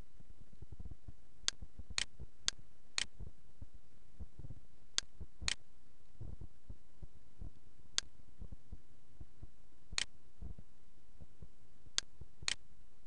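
Computer mouse button clicking: about ten sharp single clicks, several in pairs about half a second apart, as text is clicked and drag-selected. A low rumble runs underneath.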